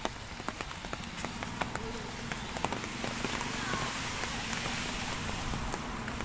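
Light drizzle: a steady hiss with scattered soft raindrop ticks, over a low background rumble.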